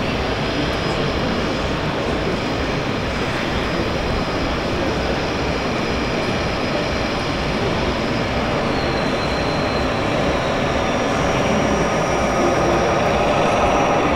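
Steady noisy din of a busy exhibition hall, with a thin high whine that shifts in pitch partway through.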